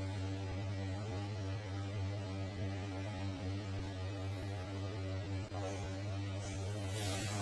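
A steady low electrical-type hum, with faint wavering tones above it and a brief hiss near the end.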